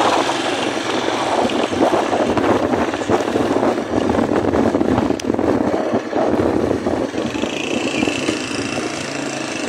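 Motorcycle engine running on the move, with wind buffeting the microphone.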